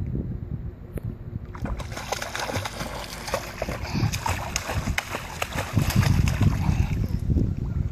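Pool water splashing as a small child in arm floats paddles and kicks, starting about a second and a half in and going on in quick, irregular splashes.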